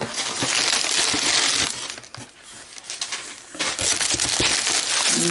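Crumpled newspaper packing rustling and crinkling as it is pulled out of a cardboard box, in two long spells, the second starting about three and a half seconds in.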